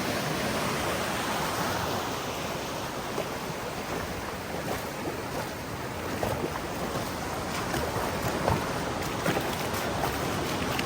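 Surf washing onto a sandy beach, a steady rushing noise of waves with no single breaker standing out.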